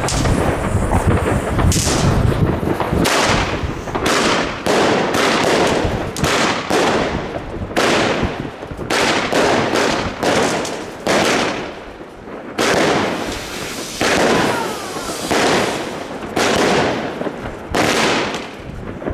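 Broekhoff Crown Collection 'Trail Blizzard' 16-shot firework cake with 20 mm tubes, firing. It gives a long series of sharp shots, each ringing out briefly, one or two a second, with a short lull about midway.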